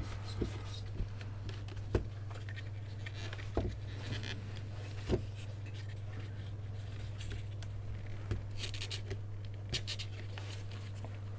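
Hands working inside an opened plastic soundbar casing, handling its circuit boards and cables: scattered light clicks and scrapes, with a patch of scraping near the end, over a steady low hum.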